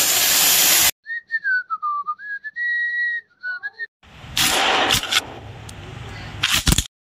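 Angle grinder noise cuts off abruptly about a second in. It is followed by a whistled tune: one clear note that slides down, climbs back and holds high for a moment, then a few quick short notes. After that comes a rushing noise with a few sharp clicks, ending suddenly.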